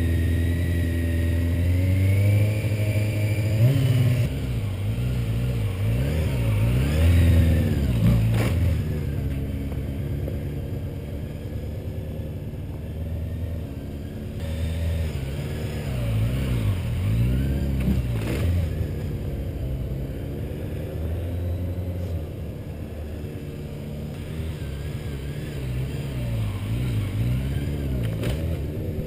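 Stunt sportbike engine running through circles, revving up and dropping back again and again as the throttle is worked, fading somewhat in the middle as the bike rides farther off. A few sharp clacks come about ten seconds apart.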